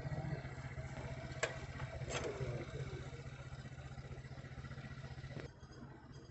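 A vehicle engine running steadily, with two short sharp cracks about a second and a half and two seconds in. The engine sound cuts off abruptly near the end.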